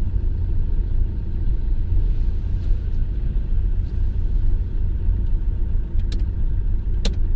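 Steady low rumble of engine and road noise inside the cabin of a Maruti Suzuki S-Cross driving slowly along a street. Two short clicks come near the end, about a second apart.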